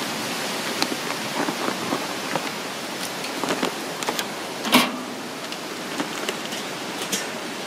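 Metal tongs clicking and scraping on a kettle grill's cooking grate as wood chips are laid on the hot charcoal for smoke, a scatter of light clicks with one louder clank near the middle, over a steady hiss.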